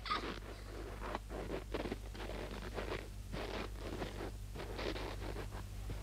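Footsteps crunching in snow, about two or three steps a second, thinning out near the end.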